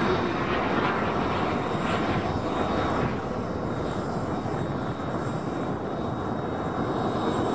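Turbine engine of a Comp-ARF Hawk scale model jet in flight: a steady rushing sound with a faint high whine. It dips a little in the middle and builds again near the end.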